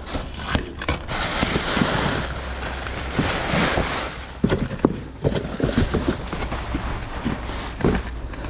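Wind buffeting the microphone, over rustling and scattered knocks as cardboard boxes and plastic wrapping are rummaged through in a dumpster. The sharpest knocks come about halfway through and again near the end.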